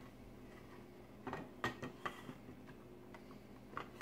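A few faint plastic clicks and taps as the Sterline TR72 tie rack's plastic hanger clamp is slid into place on a closet rod: a small cluster between one and two seconds in and one more click near the end.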